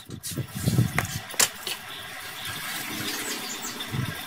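Handling noise: a few sharp clicks and soft knocks in the first second and a half as an electric blower's power cord and plug are handled, then a steady low hiss. The blower is not running.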